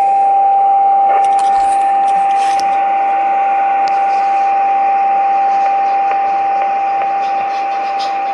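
Icom IC-718 transceiver's speaker giving a steady beat-note whistle over receiver hiss: the heterodyne of a weak test signal from a signal generator, tuned just off frequency, getting slightly quieter as the generator output is stepped down toward −120 dBm. A few light clicks come from the generator's keypad being pressed.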